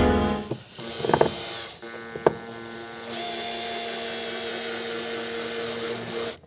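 Cordless drill-driver driving a self-tapping screw through a rock-light mount into the sheet metal of a wheel arch. A few short clicks come first, then the motor runs steadily for about three seconds and stops shortly before the end.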